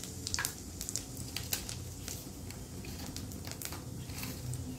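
Whole cumin seeds frying in hot oil in a steel kadai, sizzling with irregular sharp crackles and pops as the seeds temper the oil. A low steady rumble runs underneath.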